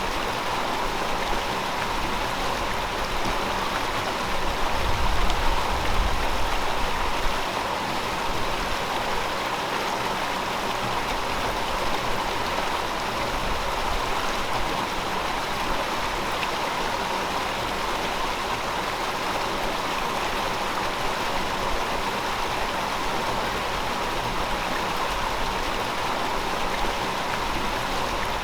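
River water flowing over rocks, a steady rushing and gurgling, with a brief low rumble of water about five seconds in.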